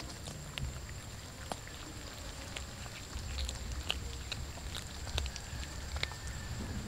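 A cat chewing raw fish: irregular short clicks of its bites, with a faint steady high whine behind.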